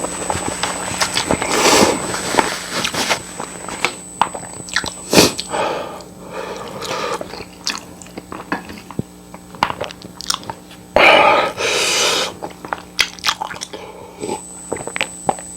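Close-up eating sounds: repeated chewing and biting with wet clicks. There are several longer noisy bursts, the loudest about eleven seconds in.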